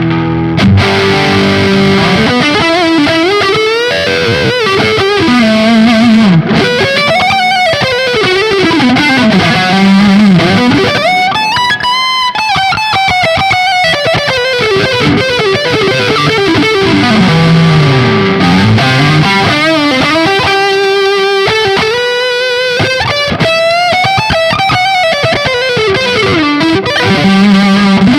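Höfner 4575 electric guitar played through distortion, loud melodic lead lines with notes gliding up and down in pitch and some held, sustained notes.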